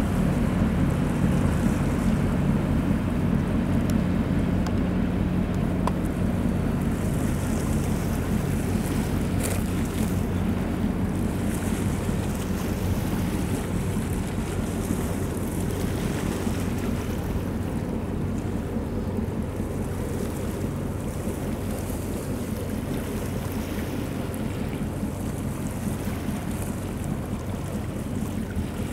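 Container ship's engine running steadily as it passes, a low hum with several steady tones that slowly fades as the ship draws away. Wind gusts on the microphone come and go.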